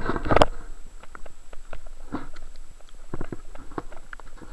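Underwater sound picked up by a camera in its housing in tidal water: irregular clicks, knocks and gurgles, with a dense burst of knocking and rushing water in the first half second.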